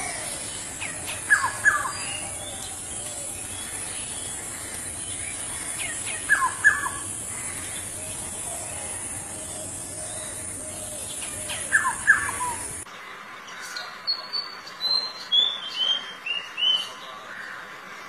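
A black-hooded oriole calls three times about five seconds apart, each call a pair of short falling notes. After a cut, a white-throated fantail sings a quick run of high whistled notes.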